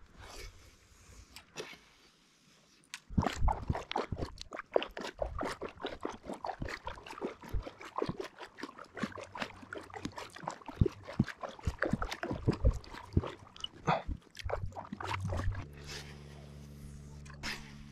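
Water splashing and sloshing in a quick, irregular run of clicks and knocks, starting about three seconds in and lasting about twelve seconds. Near the end it gives way to a steady low hum.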